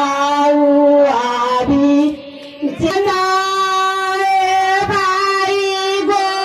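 Music with a singing voice holding long, steady notes. It breaks off briefly about two seconds in, then resumes on a higher held note.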